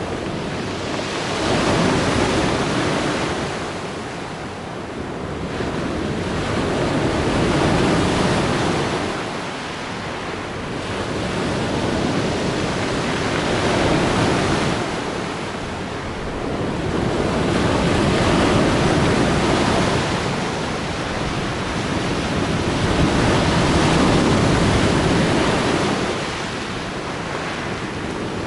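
Black Sea surf: waves washing onto the shore, the noise swelling and easing every five or six seconds.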